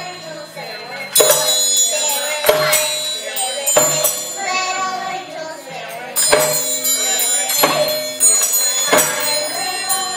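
Young children singing a Christmas song to music, with a tambourine struck on a steady beat about every second and a quarter, its jingles ringing after each hit.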